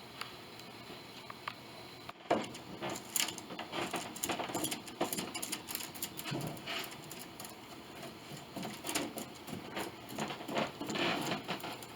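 Hand handling noise: irregular small clicks, taps and scrapes, starting about two seconds in and going on in quick uneven clusters.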